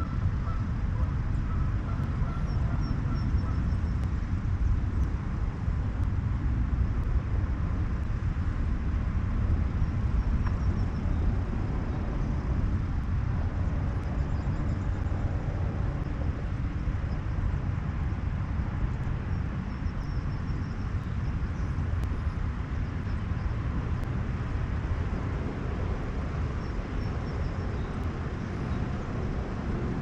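Steady low rumble of wind buffeting the microphone, with a few faint goose honks in the first few seconds and faint high bird chirps now and then.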